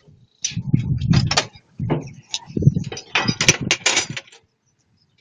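Irregular metal clattering and knocks, like tools or parts being handled and rattled during repair work. There are several dense bursts from about half a second in until just past four seconds.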